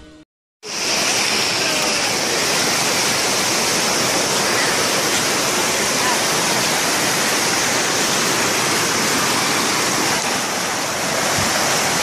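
A waterfall pouring down a steep rock slab: a steady rushing of water that comes in suddenly about half a second in.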